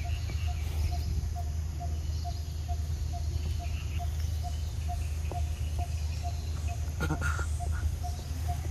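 Outdoor ambience: a bird repeats a single short note about two to three times a second over a steady low rumble, with a brief noise about seven seconds in.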